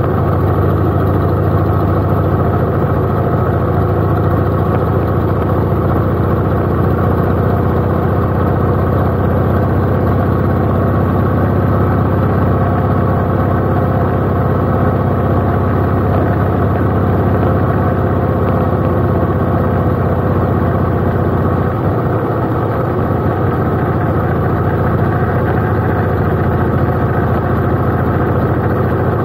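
Cruiser motorcycle engine running steadily at a constant road speed, heard from the bike itself.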